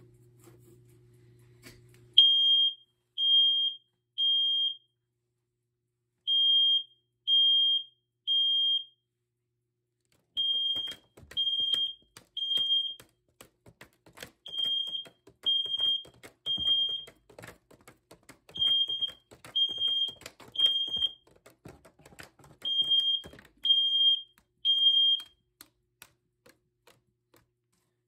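First Alert SC9120B smoke and carbon monoxide alarm going off in smoke mode, set off by test smoke. It sounds loud, high-pitched beeps in repeating groups of three with a short pause between groups: the temporal-three pattern that signals smoke. It starts about two seconds in, runs through six groups, and stops near the end.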